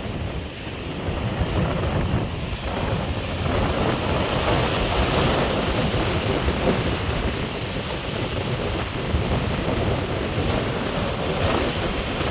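Atlantic surf washing steadily, with wind gusting on the microphone in a low rumble. The wash swells and eases a little over the seconds.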